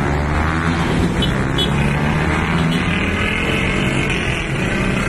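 Road traffic: a steady low engine rumble of vehicles running.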